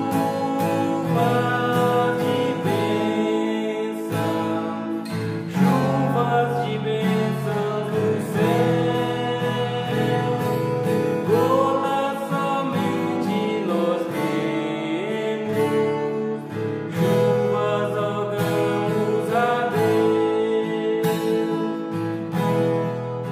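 A man sings a Portuguese gospel hymn solo, accompanying himself on an acoustic guitar played in a steady rhythm.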